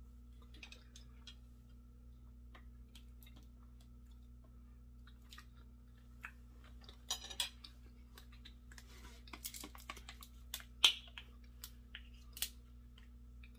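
Close-miked eating sounds: a fork clicking against the bowl and chewing, then a plastic water bottle crinkling as it is handled, with a sharp click about eleven seconds in and its cap twisted near the end.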